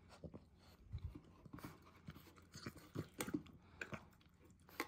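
American bully puppy chewing and licking up leftover spilled food, heard as faint, irregular short clicks of her mouth and jaws.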